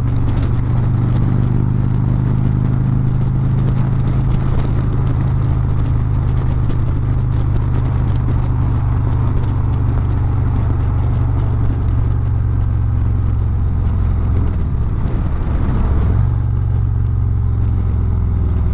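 Harley-Davidson Road Glide's V-twin running steadily at freeway cruising speed, under a constant rush of wind, picked up by a microphone on the rider's helmet. About fifteen seconds in, the engine note dips briefly and then comes back up.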